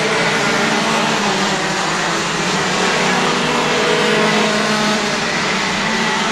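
Several racing kart engines running at speed together, their overlapping notes rising and falling as a pack of karts laps the track.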